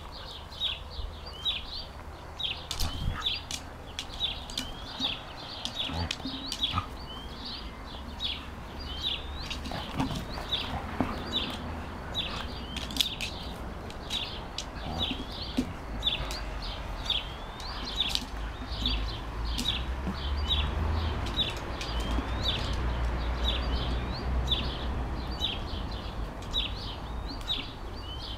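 A small bird chirping over and over: short, high chirps repeated steadily, about two a second. A low rumble rises under it in the second half.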